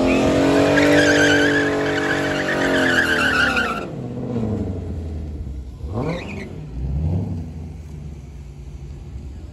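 Drag-racing muscle cars, a Ford Mustang and a Dodge Challenger, passing at full throttle. The engines are loud with a high whine and a falling pitch, and the sound cuts off abruptly about four seconds in. A second, quieter pass follows around six seconds in, its pitch sweeping up and then down.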